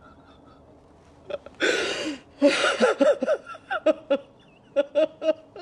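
A woman sobbing hard. After a quiet first second she draws a sharp gasping breath, then breaks into wailing cries that trail off into short catching sobs.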